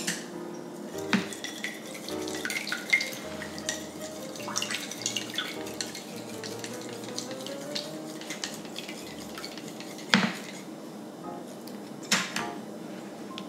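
Eggs being beaten with wooden chopsticks in a small bowl: quick, irregular clicking taps of the chopsticks against the bowl, with a few sharper knocks.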